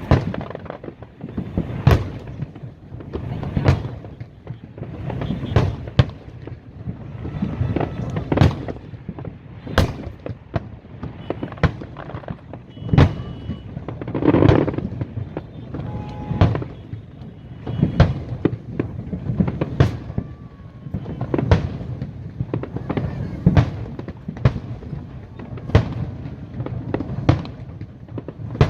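Aerial fireworks display going off: sharp bangs about every two seconds, with smaller pops and rumbling between them.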